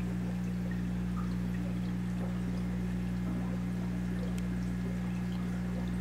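Aquarium filter running: a steady low hum with water trickling and pouring.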